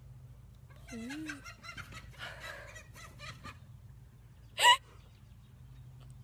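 Chickens fighting: fainter sounds early on, then one short, loud, sharp squawk about four and a half seconds in.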